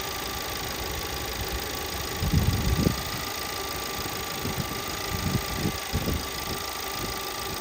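VW 1.8 TSI four-cylinder engine idling with irregular low thumps about two seconds in and again around five to six seconds in. It is misfiring randomly across all cylinders, a fault traced to a faulty variable valve timing (camshaft adjuster) solenoid.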